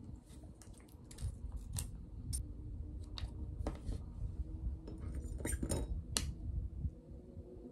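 Scattered small clicks and taps of a spoon against a cream cheese tub and a plate as cream cheese is scooped out and spread onto pieces of grilled rice cake.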